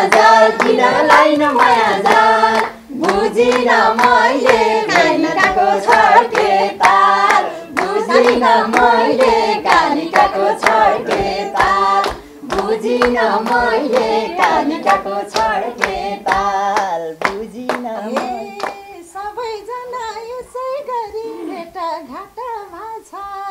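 Live Nepali dohori folk singing, sung by voice alone with hand clapping keeping an even beat. The singing grows softer over the last few seconds.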